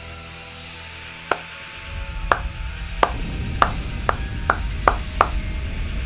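Cartoon sound effect of Black Canary's sonic scream: a sustained shrill tone over rushing noise, joined from about two seconds in by a deep rumble and eight sharp crashes coming closer and closer together as the place is destroyed.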